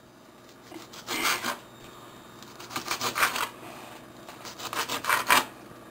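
Kitchen knife cutting green pepper on a cutting board: three short runs of quick taps, about one, three and five seconds in.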